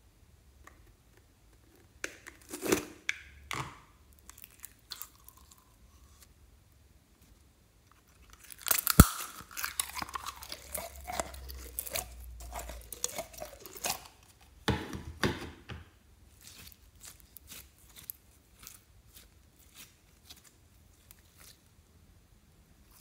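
Clear slime full of snowflake confetti being handled: sticky squelching, crackling and small pops as it is pulled out of a plastic tub and stretched. There are plastic clicks and knocks from the tub, and one sharp click about nine seconds in is the loudest sound.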